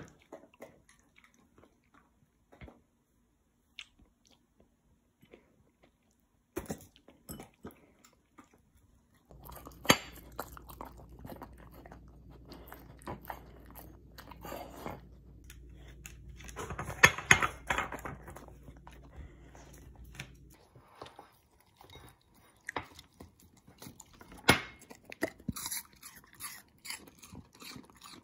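A husky dog chewing and crunching food in irregular, sharp bites, sparse at first and busier from about nine seconds in.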